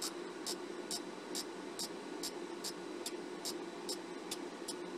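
Opened show laser projector running, with a steady ticking about two and a half times a second over a constant low hum. The owner says its galvos aren't kicking in correctly and suspects an iffy galvo power supply.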